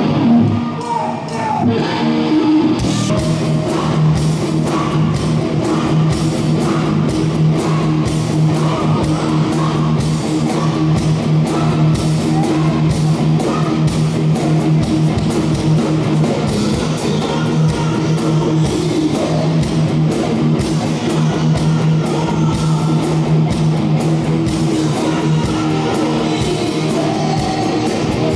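Live rock music: a band with electric guitar and drum kit playing, the drums and cymbals coming in fully about three seconds in.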